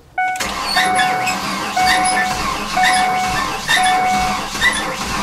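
Ford Explorer dashboard warning chime dinging about once a second, five times, over a steady low hum.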